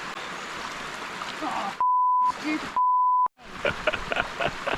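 Two censor bleeps, each a steady pure tone about half a second long, with all other sound cut out around them. Rushing water from a mountain stream is heard before and after the bleeps.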